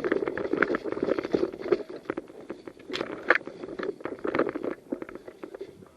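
Close rustling and scuffing of a person on the move, clothing and kit brushing against a body-worn camera's microphone, with two sharper knocks about three seconds in.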